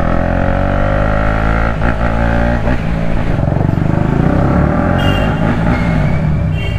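KTM Duke 250's single-cylinder engine running loud without its exhaust while being ridden. Its pitch climbs gently under throttle for the first few seconds, then drops to a lower, lumpier beat as the throttle eases.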